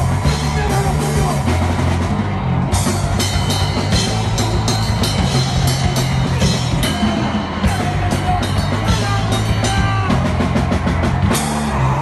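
Hardcore punk band playing live, the drum kit loudest with frequent cymbal crashes and bass-drum hits over electric guitar and bass.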